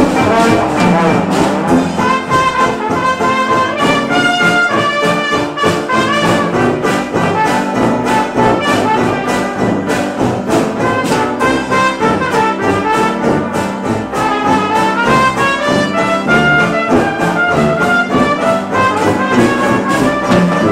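Traditional jazz band playing, with trumpet and trombone lines weaving over a steady beat.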